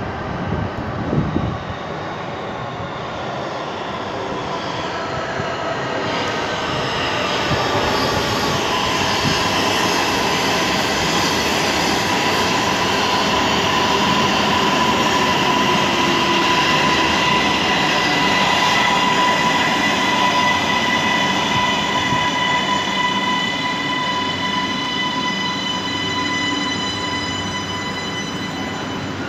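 A CSR-built metro train's electric traction motors give out a loud whine of several steady tones over running noise. The tones climb slowly in pitch as the train gathers speed out of the station. The motors are described as excessively noisy.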